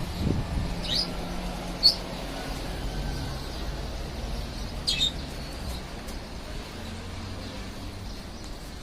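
A small bird chirping three times, short high chirps about a second in, just before two seconds and near five seconds, over a steady low background hum.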